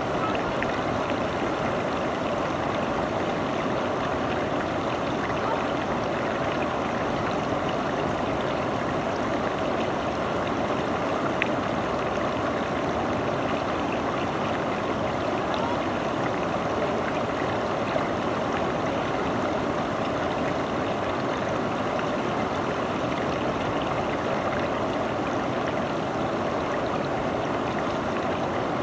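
River water rushing steadily, an even, unbroken sound of flowing water.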